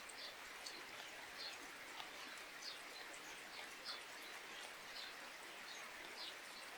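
Light rain falling in a steady faint hiss, with a small bird giving short high chirps over and over, about one or two a second.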